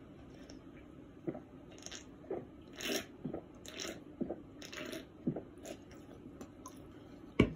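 A person eating: soft bites and chewing with short crunches scattered through, with one sharp knock near the end.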